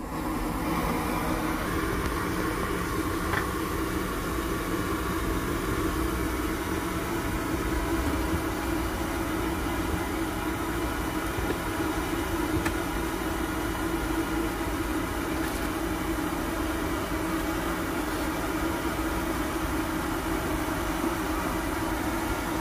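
Steady running noise of a vehicle, with a constant low hum and no breaks.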